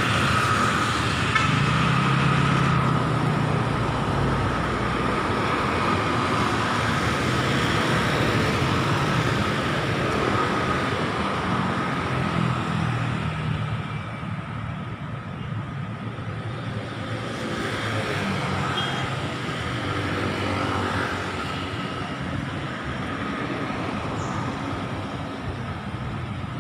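Road traffic on a city street: vehicles running past in a continuous hum, loudest in the first few seconds and easing off around the middle.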